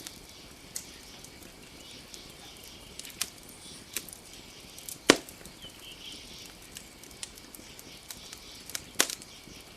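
Campfire crackling, with scattered sharp pops of burning wood. Two louder pops come about five and nine seconds in, over a faint steady high hiss.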